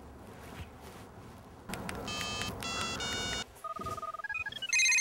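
Phone keypad beeps as a number is dialed, followed by a loud electronic telephone ring that starts near the end.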